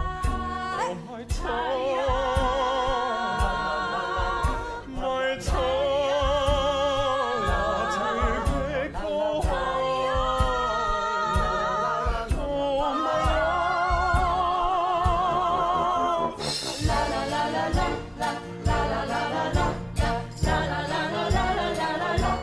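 Music with singing: long held notes sung with wide vibrato over a steady beat. About sixteen seconds in it switches to a brighter, busier passage with jingling bells.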